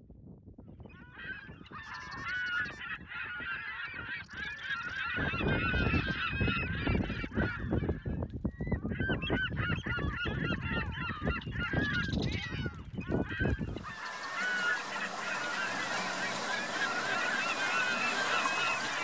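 A flock of geese calling, many honks overlapping, with a low rumble of wind on the microphone from about five seconds in. About fourteen seconds in the calls give way to a steady rush of water and wind aboard a sailing yacht underway.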